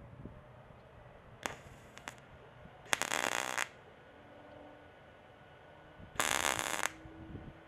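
MIG welder tacking a sheet-steel patch panel with short bursts of arc crackle: two brief blips about 1.5 and 2 seconds in, then two bursts of under a second each, about 3 and 6 seconds in. The welds are kept short and spaced so the thin panel can cool and not warp.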